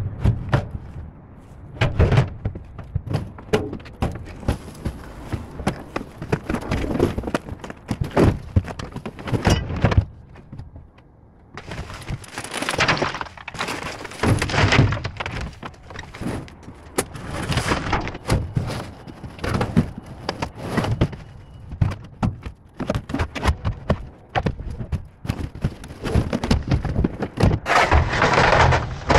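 Debris being handled in a steel dumpster: repeated knocks, bangs and thuds as boards and a long metal frame piece are shifted and pulled out. Dense crunching and scraping from about the middle onward, and again near the end.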